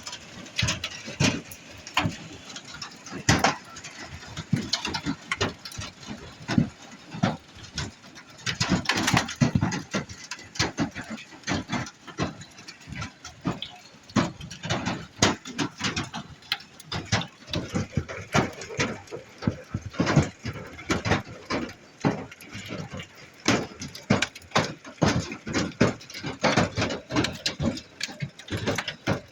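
Hailstones pounding the roof and walls of a trailer in a steady barrage of irregular hard impacts, many a second, varying in loudness; sure sounds loud in this trailer.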